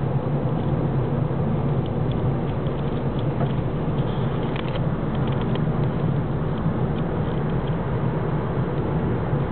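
Steady hum of a car driving at a constant speed, engine and tyre noise heard from inside the cabin. A few faint clicks sound about two to six seconds in.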